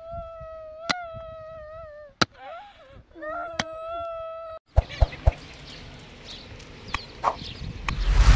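A rooster crowing twice, each crow a few short wavering notes ending in a long held call. After an abrupt cut, scattered sharp knocks and clatter sound over a steady hiss, with a loud thump near the end.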